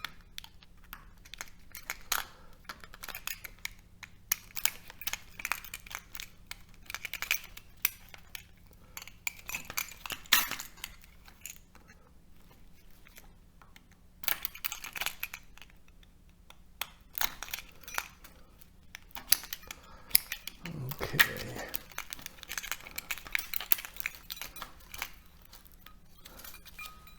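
Thin steel transformer core laminations being pulled apart and dropped onto a pile of metal, giving irregular metallic clinks and scrapes with a brief rustle about three quarters of the way in.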